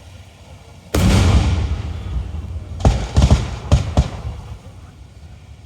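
Display fireworks exploding: one loud boom about a second in that rumbles away, then a quick run of five or six sharp cracks about two seconds later.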